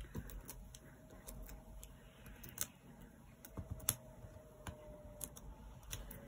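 Faint, irregular small clicks and taps of fingertips working a small piece of cardstock on a craft mat, picking the liners off foam dimensional adhesive pads.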